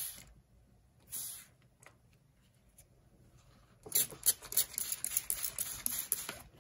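A damp inkjet photo print being peeled off wet canvas paper, crackling and rustling for the last two to three seconds. Two short hissing sounds come in the first second and a half.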